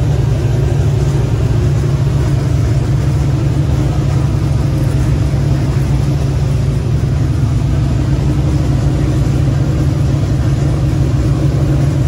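Engine running steadily at a constant speed, a loud low drone that does not rise or fall.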